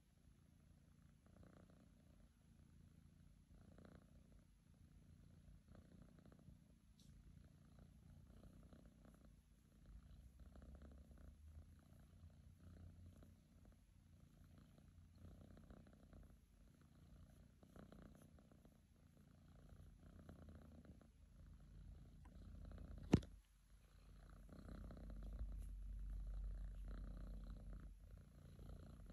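Domestic cat purring faintly, swelling and fading with each slow breath about every two seconds. A single sharp click about 23 seconds in, then a low rumble for a few seconds.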